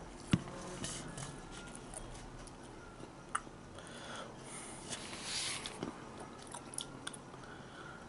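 Quiet, close mouth and handling noises: scattered small clicks, a sharp click just after the start and another a little past three seconds, and a brief hiss about five seconds in.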